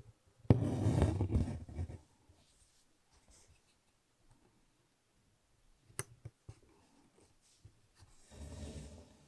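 Embroidery floss rubbing as it is pulled through cotton fabric stretched in a hoop, with fingers brushing the fabric: a loud scraping rustle about half a second in that lasts over a second, a sharp click about six seconds in, and a softer rustle near the end.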